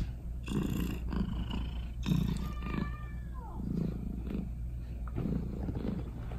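Munchkin cat purring right against the microphone, heard as a steady run of low rumbling pulses. A short falling tone comes near the middle.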